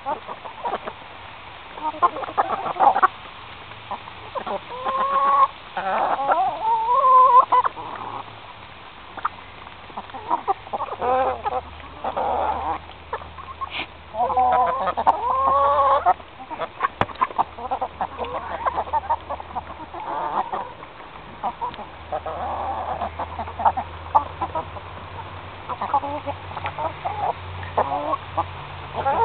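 Domestic hens clucking and calling while they feed, in repeated clusters of short, bending calls, with many short clicks in between.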